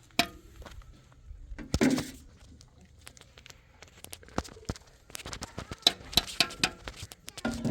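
A run of sharp knocks and clatter, thickest in the second half, with a short voice-like sound about two seconds in.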